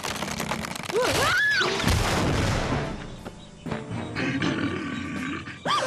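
Cartoon bear roaring, a loud rough growl over the first few seconds, then dramatic music with held tones.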